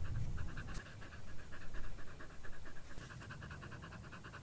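A dog panting rapidly and evenly, tongue out, with a low rumbling noise under it for the first two seconds or so.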